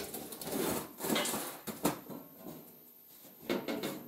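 Steel sheet-metal parts of an old mechanic's creeper being handled and fitted together: irregular scraping and rattling of thin steel, with a sharp clank a little under two seconds in and another burst of clatter near the end.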